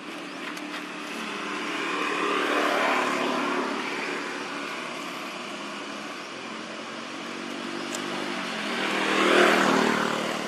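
Motor vehicles passing by: one swells and fades about three seconds in, and a louder one rises and falls away near the end.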